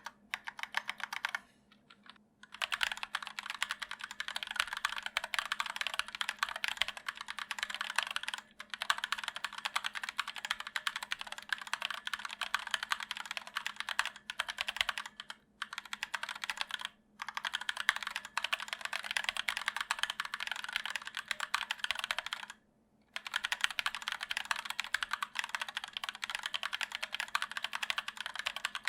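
Continuous typing on a stock ErgoDox EZ split keyboard with Durock POM linear switches and sculpted PBT keycaps: a dense run of key clacks with brief pauses every few seconds.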